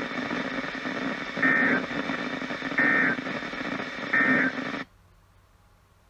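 Three short two-tone digital warbles a little over a second apart over radio static: the EAS end-of-message data bursts that close a NOAA Weather Radio Required Weekly Test. The static cuts off abruptly near the end.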